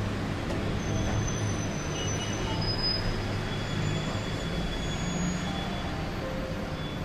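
Steady low rumble of background traffic noise, with a few faint, brief high squeals over it.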